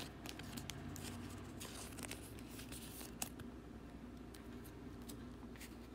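Faint rustling and light clicks of trading cards being handled in the fingers, with one sharper click about three seconds in.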